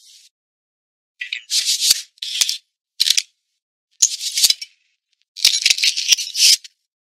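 Sound effects of an animated video intro: after about a second of silence, a run of short bursts of hissy noise with sharp clicks comes in an uneven rhythm, then stops abruptly near the end.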